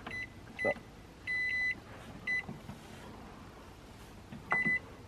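Microwave oven keypad beeping as its buttons are pressed: a series of short, high electronic beeps, each with a faint button click, including a quick run of beeps about a second and a half in and another beep near the end.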